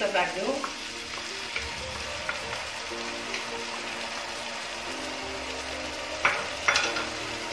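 Chopped onion, garlic and chili sizzling in hot oil in a non-stick wok, with tomato ketchup poured onto the frying mixture. Two sharp knocks come near the end.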